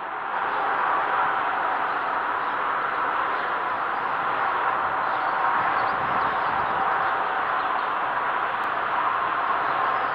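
Steady machinery noise from an industrial plant: an even hiss with a faint constant hum in it.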